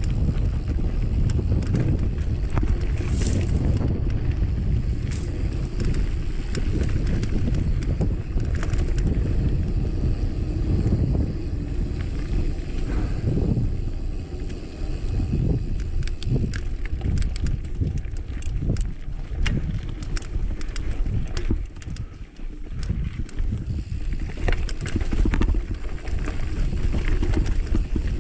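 Mountain bike riding over a rough dirt singletrack, with the wind buffeting the microphone. Frequent clicks and rattles from the bike jolting over the ground come in bunches, most densely past the halfway point.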